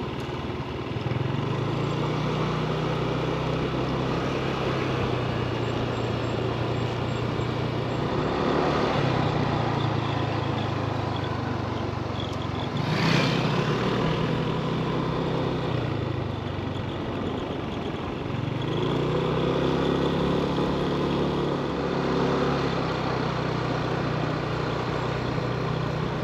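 Vehicle engine running while driving on the road, its pitch dropping and climbing again several times as the speed changes. About halfway through, another vehicle rushes past.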